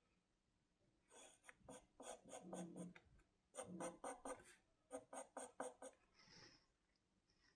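Pencil sketching on paper: faint scratchy strokes in quick runs of about five a second, pausing between groups, as short contour lines are drawn.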